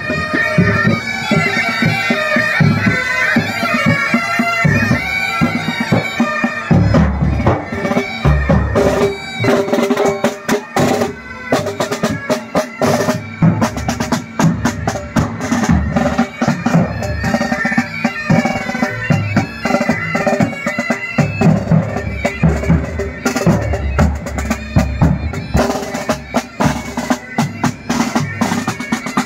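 Military pipe band playing a march: bagpipes sounding a sustained melody over their drones, with side drums beating a steady marching rhythm. The drums come to the fore about a quarter of the way in before the pipes lead again.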